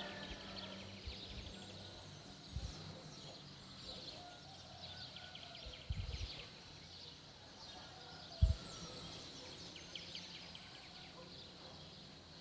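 Birdsong: several small birds chirping and trilling faintly, with short high calls throughout. A few low thumps, the loudest a little after the middle.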